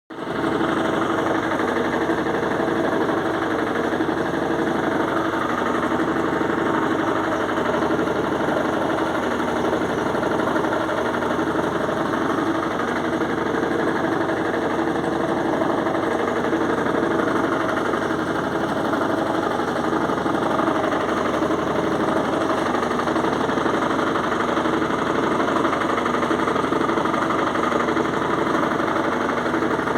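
Electrolux washing machine spinning a duvet, a steady loud mechanical running noise with a fine rattling texture. The owner finds the noise a little alarming but thinks it normal.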